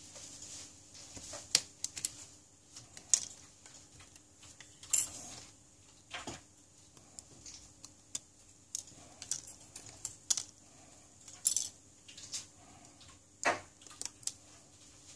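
Irregular light clicks and taps of small tools and parts being handled while a Samsung Galaxy S7 smartphone is taken apart, roughly one a second with a few sharper ones, over a faint steady hum.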